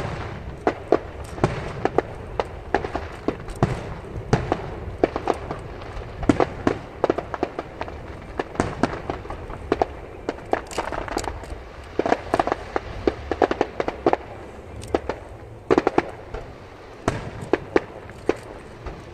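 Aerial fireworks shells bursting in a rapid stream of sharp bangs and crackling pops, several a second, thickest in the middle, with a brief lull about three-quarters of the way through before a few more loud bangs.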